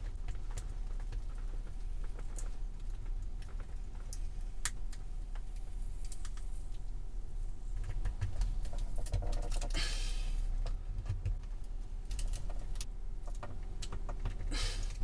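Blade vignette scraper scraping a taped adhesive vignette off the inside of a car's glass windscreen: a run of small scratchy clicks and ticks, with a brief louder rasp about ten seconds in as the sticker comes away.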